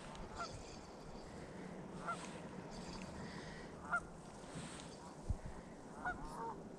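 Faint goose honks: short single calls every two seconds or so, with a quick pair near the end, over a quiet steady background.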